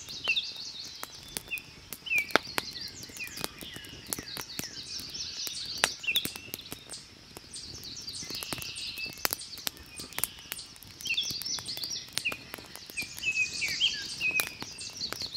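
Campfire crackling in irregular sharp pops, with small birds chirping and calling throughout.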